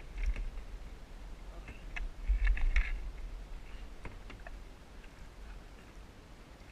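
A scatter of light clicks and knocks, bunched together about two to three seconds in, over a steady low rumble.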